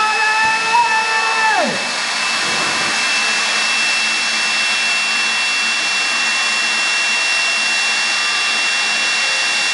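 Jet car's turbine engine running at full blast, a steady roar with a constant high whine, its exhaust torching a wrecked car. A held, pitched tone over the roar falls away about two seconds in.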